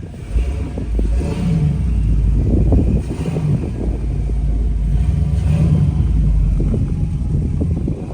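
Off-road vehicle engine revving under load while crawling a trail obstacle, the revs rising and falling over a heavy low rumble. It eases off near the end.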